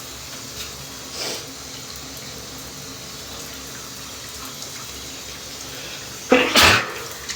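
A man sneezes once, loudly, near the end, a short pitched intake-like onset followed by a forceful noisy blast, over the steady hiss of running water.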